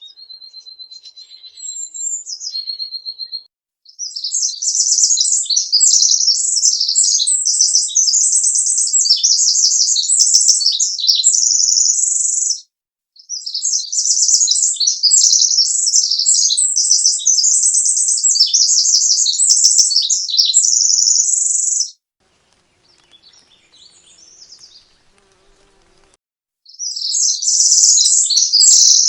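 A small bird singing long, rapid, high-pitched trills in bouts of about eight seconds, after a few short whistled notes at the start. There is a pause of a few seconds before the last bout.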